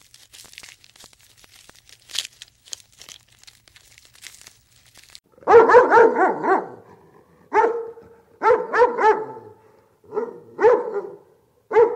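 Puppy barking: a run of short, high yips in bunches that starts about halfway through, after a few seconds of faint clicking and rustling.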